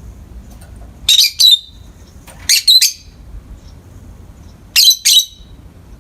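Peach-faced lovebird giving loud, shrill squawking calls in three short bursts of two or three calls each: about a second in, in the middle, and near the end.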